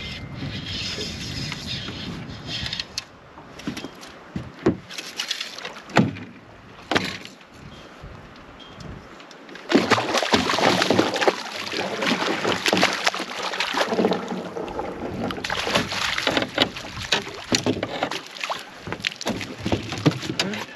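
A hooked hybrid striped bass splashing and thrashing at the water's surface beside the boat, loud and continuous from about ten seconds in as it is brought to the net. Before that, a quieter stretch with a few sharp clicks.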